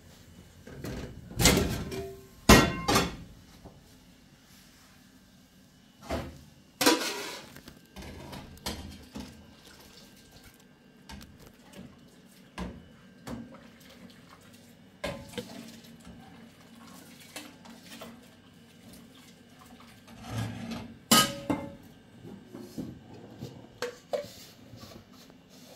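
Metal cooking pots and lids handled on a gas stove: scattered clanks and knocks several seconds apart, with quieter rattles in between.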